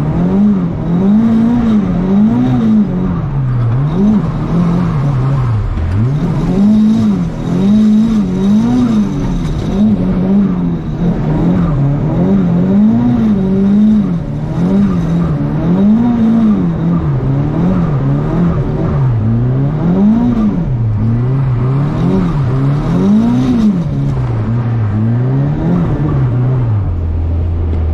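Drift car's engine, heard from inside the cabin, revving up and down over and over, about once a second, as the car is thrown sideways round a wet track. The revs drop and settle near the end.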